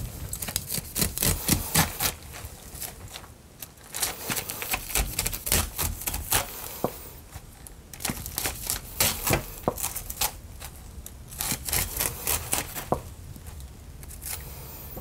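Chef's knife cutting raw white corn kernels off the cob, a rapid run of small crisp clicks and scrapes that comes in several bursts, one downward pass after another.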